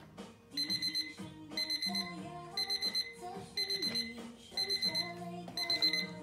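Digital countdown timer's alarm beeping at zero: six bursts of quick high beeps, about one burst a second, each of about four pulses. Background music with guitar and singing plays underneath.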